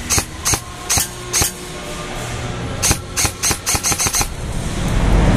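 Airsoft rifle firing single sharp shots, four about half a second apart, then after a pause a quicker run of about eight. Near the end a low rumbling noise swells in.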